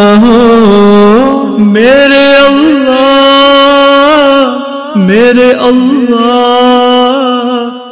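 A solo voice chants a slow, ornamented melody in long held notes, with no instruments, and pauses briefly for breath about five seconds in.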